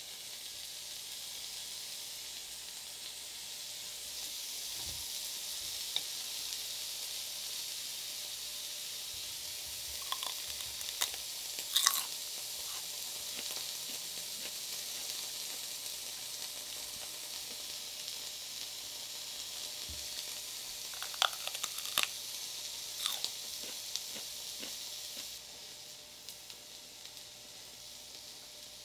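Slices of meat sizzling on a round tabletop Korean barbecue grill pan: a steady hiss, with a few light clicks here and there, the sizzle dropping a little near the end.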